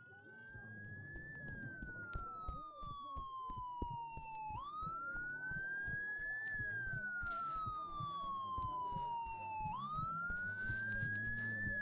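A siren wailing in slow cycles: each cycle the pitch climbs quickly, then slides slowly down for about three seconds before jumping up again, roughly every five seconds. A constant high-pitched ringing tone runs under it.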